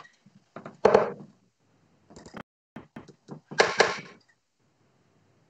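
Steel-tipped darts thudding into a bristle dartboard: a few sharp thunks, the loudest about a second in and again near four seconds, with lighter clicks of darts being handled in between.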